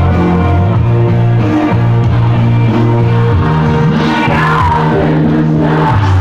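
Loud amplified music with a heavy, sustained bass line and a singing voice over it.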